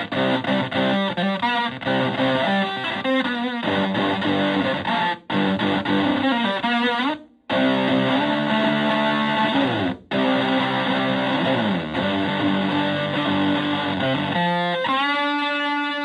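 Stratocaster electric guitar played through a Tone Bender MkI-style fuzz pedal into a Fender Twin-style amp: fuzz-distorted riffs and single notes in short phrases with brief breaks, a dead stop about seven seconds in, several downward slides, and a long held note near the end.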